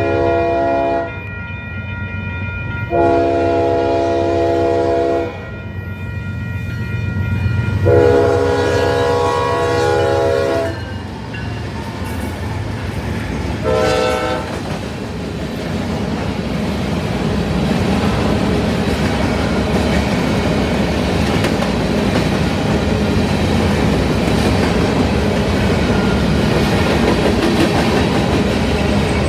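A Nathan K5HLB five-chime air horn on a BNSF diesel locomotive sounds its crossing warning: the end of one blast, two long blasts about 3 and 8 seconds in, then a short blast about 14 seconds in. The locomotives then pass, and the steady rumble and wheel clatter of covered hopper cars rolling by builds to the end.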